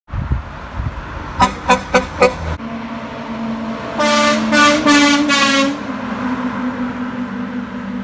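Four quick honks of a truck horn, then a concrete mixer truck's air horn blown in three blasts lasting about a second and a half in all as the truck passes, its engine running steadily underneath.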